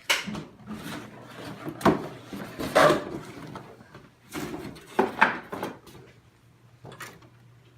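Cardboard box and packaging of an RC truck being handled during unboxing: irregular rustles, scrapes and knocks, busiest in the first few seconds and again about five seconds in.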